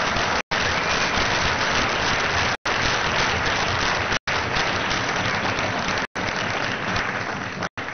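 A large audience applauding steadily, easing off near the end. The sound is broken by brief silent dropouts every second or two.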